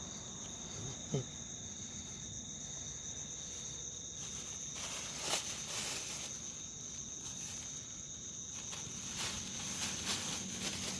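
Insects trilling steadily in two high pitches, with a few brief clicks or rustles about five seconds in and again near the end.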